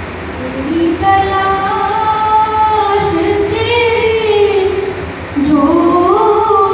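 A boy's solo voice singing an Urdu devotional manqabat in praise of Ali, drawing out long, wavering held notes, with a brief breath about five seconds in before the next phrase.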